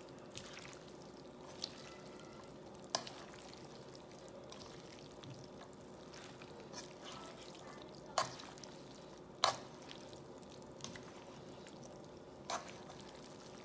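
Chow mein noodles being tossed and stirred in a nonstick frying pan, with a faint steady sizzle under it. A few sharp clicks of the silicone spatula and fork against the pan, the loudest about eight and nine and a half seconds in.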